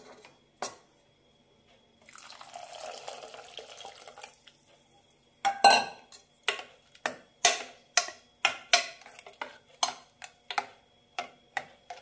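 Coconut milk pouring into a steel pressure cooker of cooked millet for about two seconds. Then a steel ladle stirs it in, knocking against the pot with sharp clinks two to three times a second.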